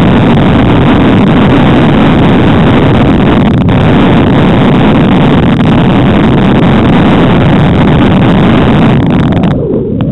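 Loud, steady wind rumble on the microphone together with the tyre and rolling noise of a mountain bike riding fast along a woodland trail. It drops away sharply near the end as the bike slows.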